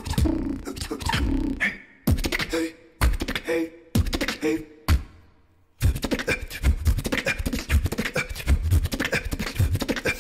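Beatboxing into a microphone: a solo beatboxer's kick drums, snares and clicks in a stop-start pattern. After a near-silent pause of under a second, about halfway through, a fast, steady beat starts up again.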